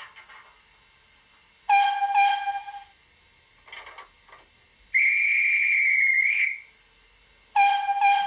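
Sound-decoder recording of a Great Western steam locomotive, played through the speaker of a Bachmann Earl class model loco. It gives two short toots on the engine's whistle, then a guard's whistle held for about a second and a half, then the engine's whistle answering with two more short toots: the guard's right-away signal and the driver's acknowledgement.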